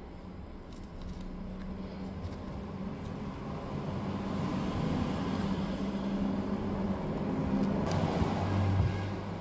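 A road vehicle going by: engine hum and road noise swell gradually over several seconds to a peak near the end, then begin to fade.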